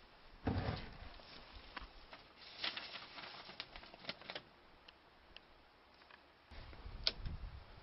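Handling noise: a thump about half a second in, then scattered light clicks and knocks, and a sharp click near the end.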